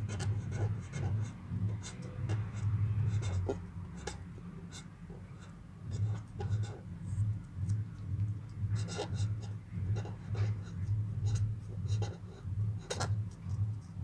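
Red marker pen writing on paper, a run of short stroke sounds, over a low hum that pulses about twice a second.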